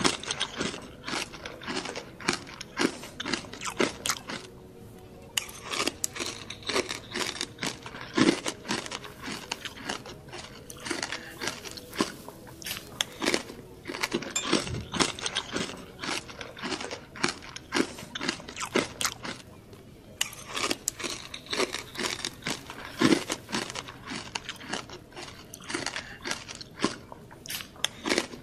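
Crunching and chewing on crispy deep-fried pork knuckle (crispy pata): irregular crackling bites of the fried skin, pausing briefly twice.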